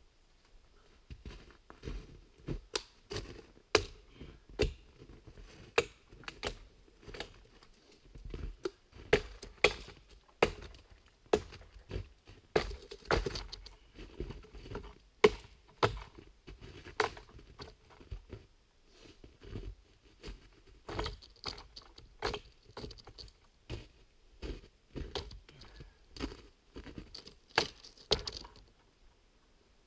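Hatchet chopping into a dead spruce or pine pole: a long run of sharp, irregular chopping strokes, about one or two a second, stopping shortly before the end.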